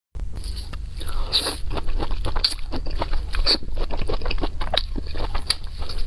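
Close-miked biting and chewing of fried skewers in chili sauce, with many quick, sharp crunching clicks over a low steady hum.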